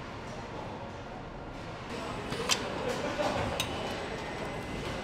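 Car-factory assembly-line ambience: a steady machinery hum that grows a little louder about two seconds in, with two sharp metallic clicks, about a second apart.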